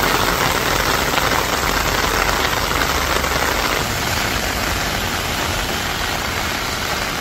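Heavy rain pouring down onto pavement: a steady, dense hiss of drops.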